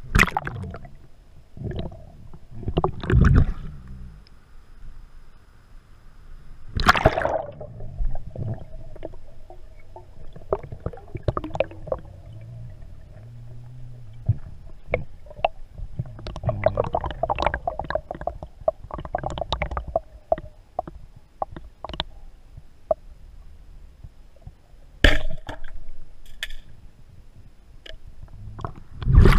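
Bluetec Raptor 115 speargun being handled and fired underwater, heard through the camera underwater. Sharp knocks and clacks of the shots and the spear striking come several times: near the start, at about 3 and 7 seconds, near 25 seconds, and loudest at the very end. Water swishes and bubbles in between.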